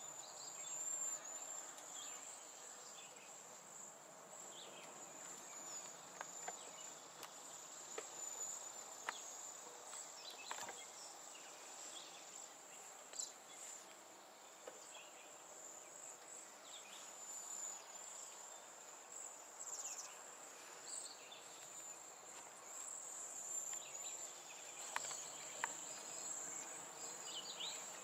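Outdoor ambience: a steady, high-pitched insect trill, with short faint bird chirps and a few small clicks scattered through it.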